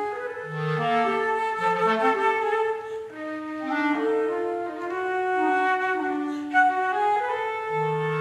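Flute and B-flat clarinet playing a slow, lyrical duet of held notes, the clarinet's line dipping into its low register beneath the flute.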